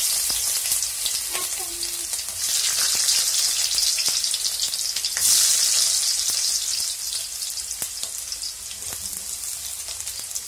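Chopped onion and ginger frying in hot oil in an iron kadai: a steady sizzle with scattered crackles. The sizzle swells again about five seconds in and then slowly dies down.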